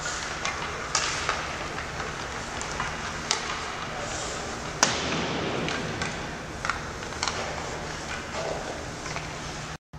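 Sharp clacks of hockey sticks and pucks on the ice, scattered and irregular, ringing in a large, mostly empty arena over a steady hall background; the loudest crack comes about five seconds in.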